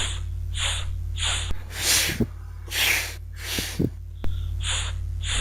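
A voice repeatedly pronouncing the letter F's sound /f/: a series of about eight short, unvoiced hisses of breath pushed between teeth and lip, some longer than others.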